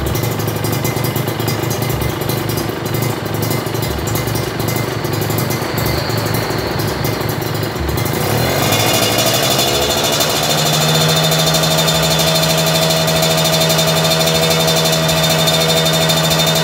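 Kawasaki Ninja R's two-stroke single-cylinder engine running through an aftermarket racing-style muffler. It idles at first, is revved up about halfway through, and is held at a steady higher speed.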